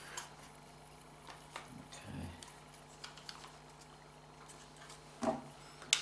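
Faint, scattered clicks and taps of hard plastic as a Mercedes W202 gear selector assembly is handled and its reverse light switch housing is pried open, with a sharper click near the end.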